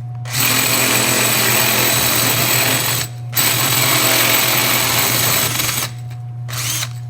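Power drill with a 3/8 in bit drilling out the old wheel axle from the back of a roller bag: two steady runs with a short pause between, then a brief burst near the end.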